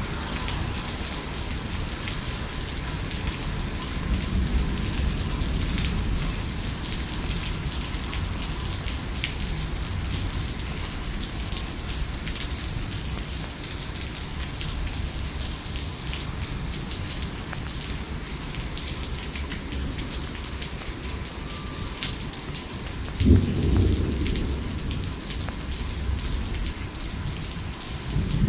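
Heavy rain pouring steadily onto a paved parking lot, a dense even hiss. About three-quarters of the way through a sudden clap of thunder breaks in and rumbles for a second or two, and another low rumble of thunder begins near the end.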